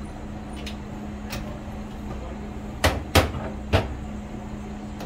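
Three sharp clunks from a train's driving controls as the brass brake handle is worked and lifted off its stand, the second the loudest, over a steady low hum in the cab.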